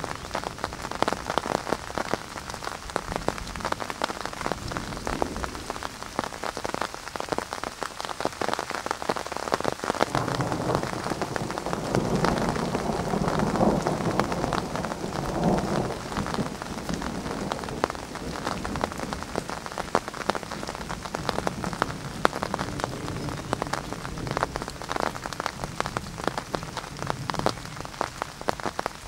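Rain pattering steadily with dense close drop hits during a thunderstorm, and a low roll of thunder swelling up and dying away about halfway through.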